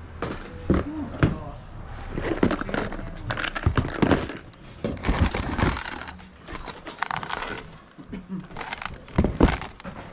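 Rummaging through clutter: plastic boxes and other objects being handled and shifted, giving an irregular run of knocks, clatters and rattles.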